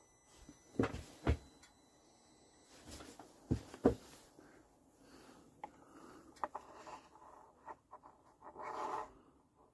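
Handling noise from a parked motorcycle with no engine running: a few sharp knocks and taps, in two close pairs about a second and three and a half seconds in, then softer clicks, as fingers work the handlebar switches and the touchscreen dash.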